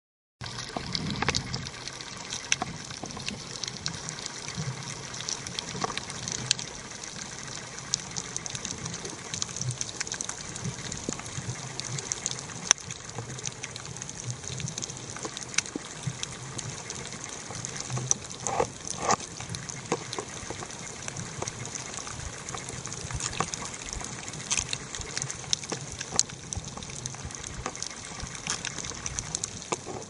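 Underwater sound picked up by a submerged camera: a steady rushing hiss of water, peppered with many sharp clicks and crackles and a few soft low thumps of water movement.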